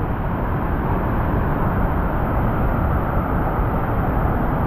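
Steady roar of a waterfall: a dense, even rushing noise, heaviest in the low range.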